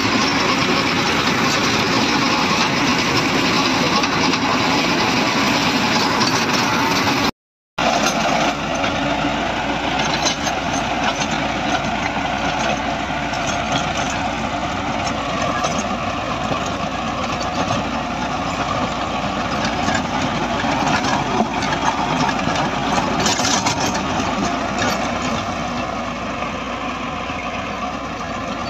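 Tractor's diesel engine running steadily under load as it drives a rotavator tilling dry soil, a dense, even machine noise. It drops out to silence for a moment about a quarter of the way in, then carries on the same.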